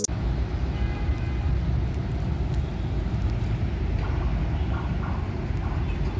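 Steady low rumble of road traffic on an elevated toll road.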